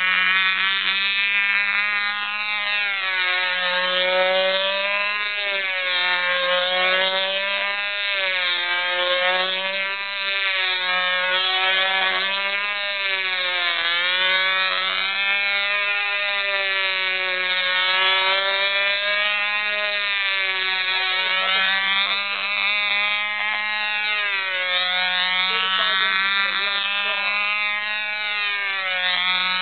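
Super Clown control line model airplane's small engine running continuously at high speed, a buzzing whine whose pitch rises and falls in a slow repeating wave as the plane circles on its lines.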